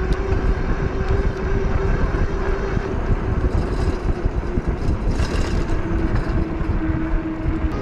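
Engwe Engine Pro e-bike riding on a paved road: wind rushing over the microphone and tyre noise, with a steady whine from the electric hub motor. The whine sinks slightly in pitch near the end as the bike slows, and a brief hiss comes about five seconds in.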